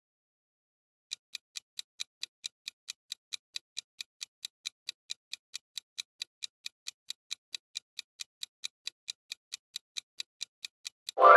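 Countdown-timer sound effect ticking steadily, about four or five ticks a second, as the quiz clock runs down to zero. Near the end a loud pitched chime breaks in as time runs out.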